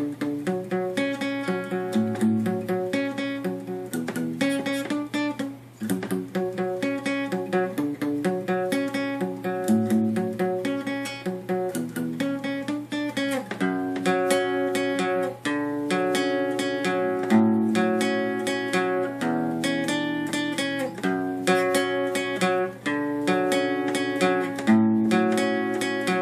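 Acoustic guitar played solo, strumming a chord progression in a steady rhythm with no singing.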